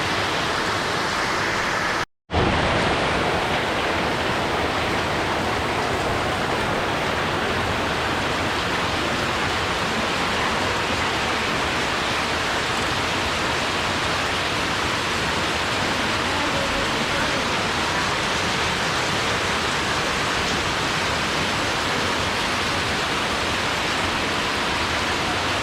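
Steady rainfall: a dense, even hiss that cuts out completely for a split second about two seconds in, then carries on.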